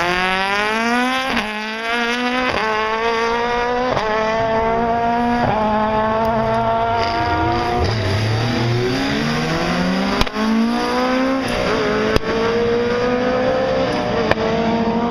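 Rally car engine accelerating hard up through the gears, the pitch climbing and dropping sharply at four quick upshifts in the first six seconds. The pitch then falls as the car slows, and it climbs again through further shifts.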